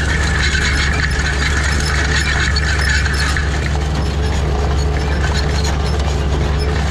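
Oliver Super 77 tractor's six-cylinder engine running steadily under load as it pulls an IH 56 corn planter, with the planter's drive mechanism clinking and rattling close by in a fast, even clatter.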